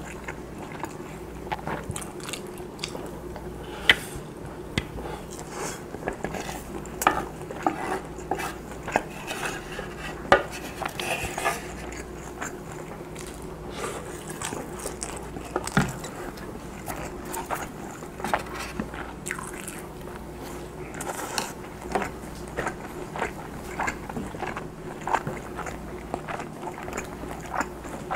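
Close-miked eating sounds of rice and Spam: chewing with many small wet clicks and smacks. A wooden spoon scrapes and taps a wooden bowl now and then, over a faint steady hum.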